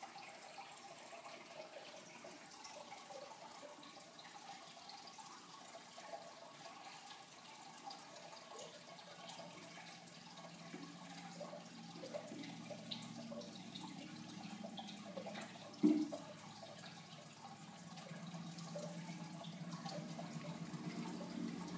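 Faint running water, a garden hose trickling into a plastic kiddie pool. One sharp knock comes about sixteen seconds in, and a low hum builds through the second half.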